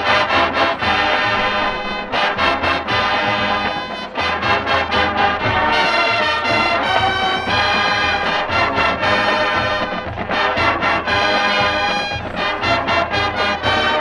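Marching band playing a loud, brass-heavy passage, with sousaphones on the bass line; sustained chords are broken up by short, punchy accented hits.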